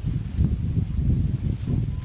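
Wind buffeting the microphone: a low, irregular rumble that swells and dips.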